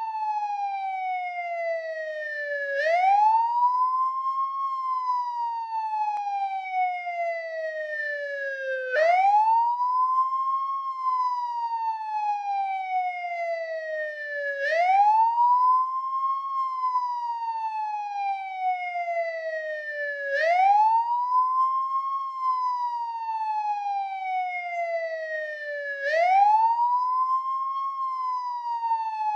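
American police car siren sounding the wail tone: the pitch rises quickly, then falls slowly, over and over about every six seconds.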